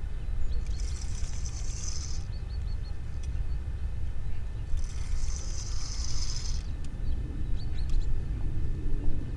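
Spinning reel on a feeder rod cranked in two short spells, each a high whirr lasting under two seconds, as a hooked fish is reeled in. A steady low rumble runs underneath.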